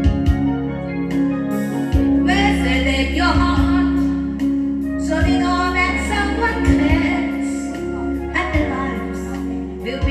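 Song with electronic organ or keyboard chords held underneath and a voice singing over them from about two seconds in.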